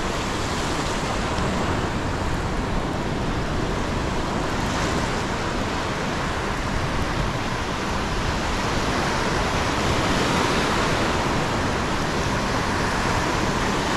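Ocean surf breaking and washing up a sandy beach: a steady rushing noise that swells a little near the end.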